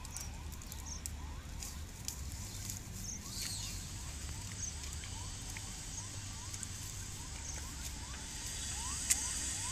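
Outdoor pond-side ambience: a steady low rumble with a high hiss, and a run of short rising chirps, a few a second, that grow louder near the end. One sharp click about nine seconds in.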